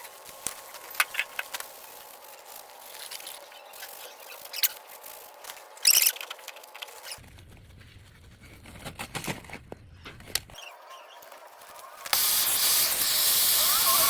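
Scattered clicks and light knocks of handling, then about 12 seconds in an outdoor hose bib is opened and water rushes out with a loud, steady hiss and a faint wavering squeal.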